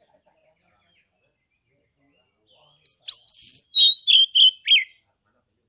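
Oriental magpie-robin (kacer) singing a quick run of loud, high whistled notes with rising and falling slides, starting nearly three seconds in and lasting about two seconds.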